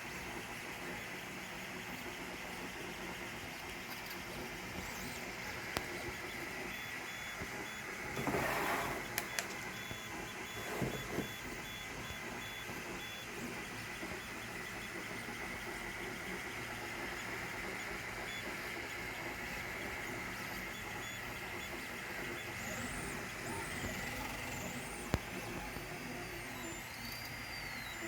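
Balco 3D printer running, its stepper motors giving a steady high whine, with a couple of louder noisy bursts partway through. Near the end the whine sweeps up and down as the Y-axis table makes fast moves, and a single sharp knock marks the table shuddering.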